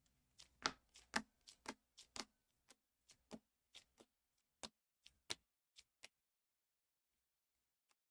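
Rigid plastic top-loaders holding trading cards clicking against one another as they are flipped through one by one: a string of short, sharp clicks about two a second that stops about six seconds in.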